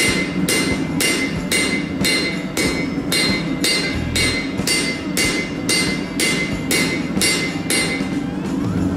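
Hammer blows on red-hot spring steel against an anvil, about two a second, each with a bright metallic ring, stopping shortly before the end: forging the bevel along the knife blade's edge. Background guitar music plays underneath.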